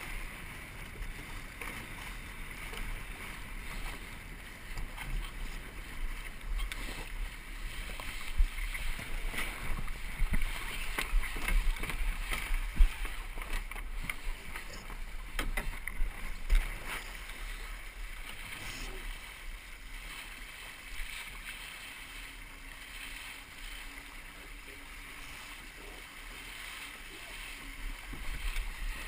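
Water rushing along a Musto Skiff's hull under sail, with wind rumbling on the microphone and irregular knocks, busiest in the middle and calmer near the end.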